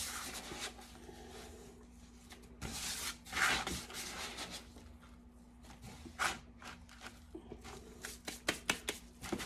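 Gloved hands sweeping and scraping dry powdered soap-tablet mix across the top of a tablet mold to pack it in flush: a soft gritty rustling, with louder swishes about three seconds in and a quick run of light taps and clicks near the end.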